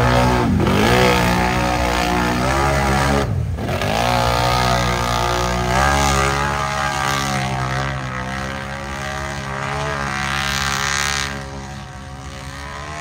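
Big-tire mud bog truck's engine revving through the bog hole. The revs drop sharply and climb back twice in the first few seconds, then hold steady before easing off near the end.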